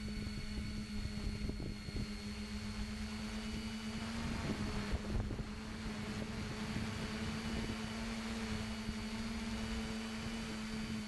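Tricopter's three brushless motors (RCMC 2212, spinning 10x5 props) humming steadily in flight, heard from the onboard camera, over a low irregular rumble of wind and prop wash on the microphone.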